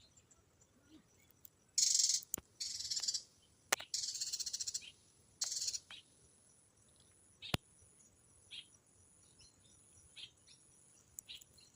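Small birds calling: four loud, harsh, buzzy hissing calls in quick succession in the first half, then scattered short high chirps. A few sharp clicks fall in between.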